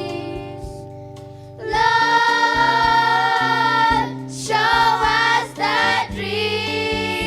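A choir singing a gospel song over steady instrumental backing; the voices come in strongly about a second and a half in.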